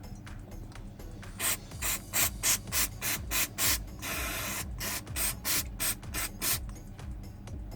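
Quick hissing strokes, about three a second, from cleaning the water-damaged iPhone 11's parts, with one longer steady hiss about four seconds in.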